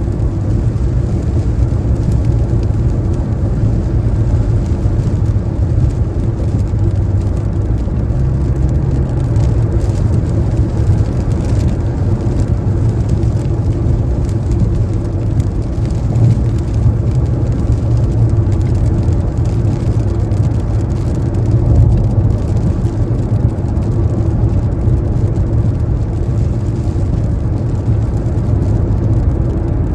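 Car driving at highway speed on a rain-wet interstate: a steady low rumble of tyres and engine.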